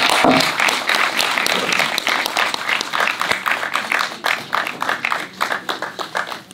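Applause from an audience: dense hand clapping that gradually dies away over the last few seconds.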